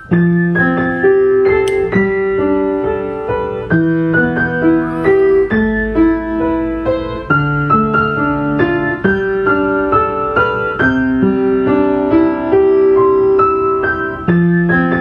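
Background music: a piano or electric-piano melody with held notes and chords, played steadily at an even level.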